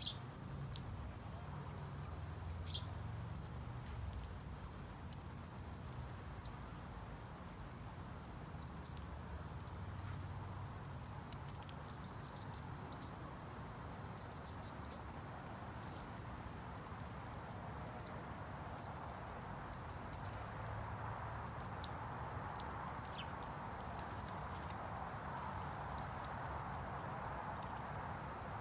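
Insects calling: a steady high-pitched trill throughout, with frequent short bursts of rapid chirping pulses laid over it every second or so.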